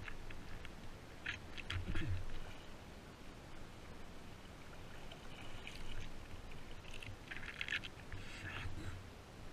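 Kayak paddling: paddle blades splash and drip into the water in short clusters every few seconds, with a couple of low bumps.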